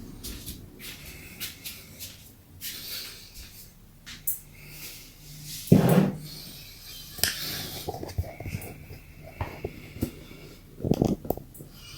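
Scattered clicks, knocks and thumps of objects being handled in a small room, the loudest thump about six seconds in and another cluster near the end.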